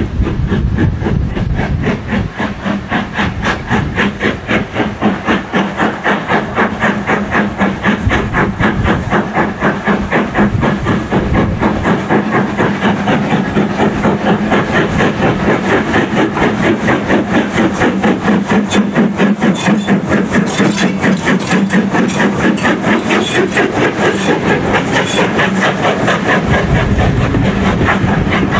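LMS 4F 0-6-0 steam locomotive working hard with a passenger train, its exhaust beating in a quick, even rhythm. Near the end the rumble and clatter of coaches passing close joins in.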